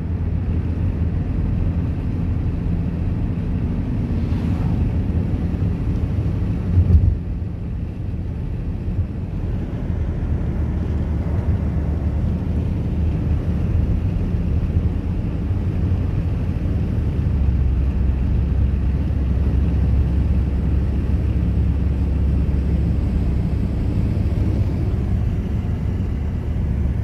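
Car interior noise at highway speed: a steady low rumble of engine and tyres on the road, with a short thump about seven seconds in.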